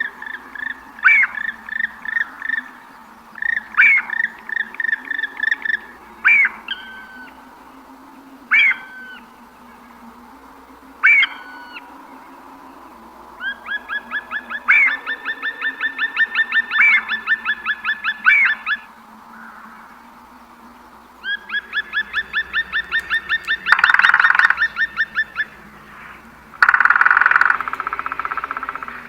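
Songbirds singing: short phrases of sharp, quickly repeated notes, then two long runs of rapidly repeated notes at about four a second. Near the end come two harsher, rasping bursts.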